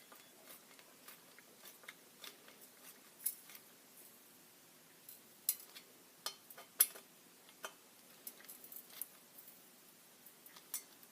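Light, scattered metallic clicks and taps of a hand driver and bit working the rail's clamp screws as they are snugged up, a few of the clicks sharper than the rest.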